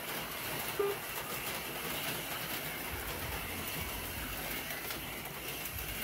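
HO-scale slot cars running around a plastic track, their small electric motors buzzing and the cars rattling in the slots. A short beep sounds about a second in.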